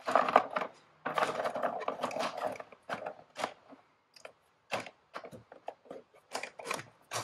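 A coiled winch control cable and plastic remote being stuffed into a small hard plastic Pelican 1120 case, with cable rustle and clattering against the case walls for the first few seconds. Then a string of separate light clicks and knocks as the pieces are pushed into place.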